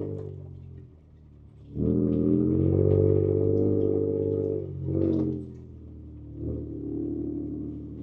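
Ford Ranger Raptor's twin-turbo 3.0-litre V6 heard from inside the cab, its engine note dropping away about a second in, rising again just before two seconds and holding steady, then easing back a little after about five seconds.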